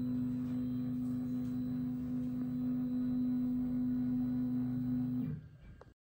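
Stepper motors of a CNC hot-wire foam cutter giving a steady low, multi-tone hum as the machine traces its cut; it stops abruptly about five seconds in.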